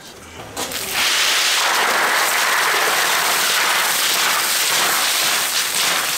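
Loud, steady sizzling and crackling as a basketful of wet river snails is tipped into a hot wok. It starts about a second in and eases slightly near the end.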